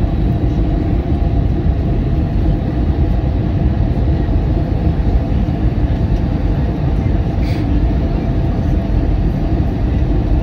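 Steady rumble of an Airbus A320's engines and airflow, heard from inside the passenger cabin while the jet descends on approach to land.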